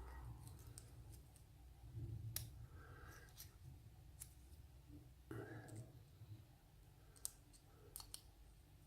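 Faint handling of a brass lock cylinder with its key and a shim: a few scattered, sharp little metal clicks over soft fumbling.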